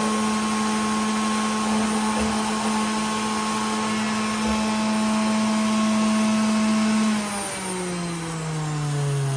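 Hamilton Beach centrifugal juicer's motor running with a steady whine. About seven seconds in it is switched off and spins down, its pitch falling.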